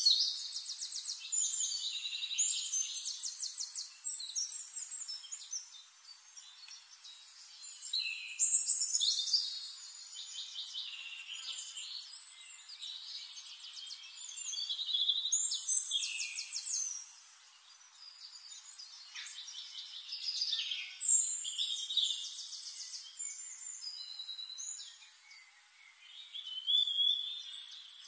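Several small birds singing, with fast trills and chirps in loud phrases every six or seven seconds and quieter chirping between them.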